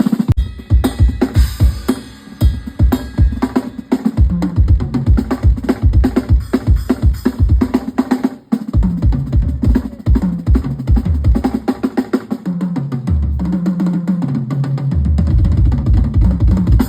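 Drum kit played during a band sound check: fast, repeated bass drum strokes with snare and cymbal hits over them, and low held notes changing pitch underneath in the second half.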